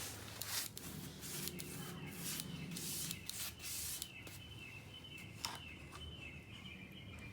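Paintbrush brushing graffiti remover onto a concrete sidewalk: irregular scrubbing strokes, busiest in the first few seconds, then lighter.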